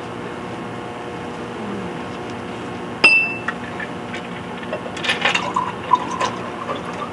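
A steady hum, broken about three seconds in by one sharp clink that rings briefly. From about five seconds in come a run of small clinks and light splashy noise.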